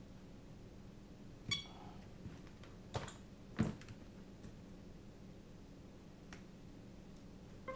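Hands handling a small drone and its cable on a workbench: a few sharp clicks and knocks, the loudest a thump about three and a half seconds in, over a faint steady hum.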